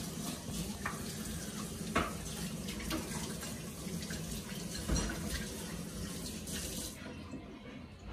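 Kitchen tap running as a measuring cup is rinsed, with a few light knocks, then shut off about seven seconds in.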